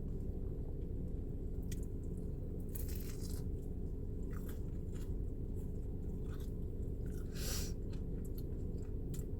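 Close-up chewing and biting of crunchy food, the crisp fried crust of a pie, with a few scattered crackles; the loudest are about 3 seconds in and about 7.5 seconds in. A steady low hum runs underneath.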